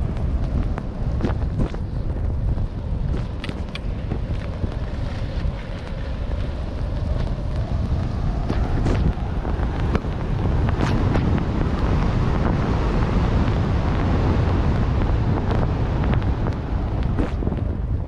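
Wind buffeting the microphone of a skier moving fast downhill, a steady loud rumble over the hiss and scrape of skis on snow, with scattered brief clicks.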